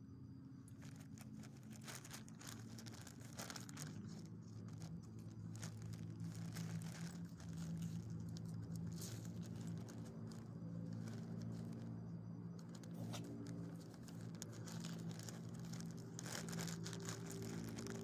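Small dog chewing a treat: irregular crunching, crinkling clicks over a steady low hum.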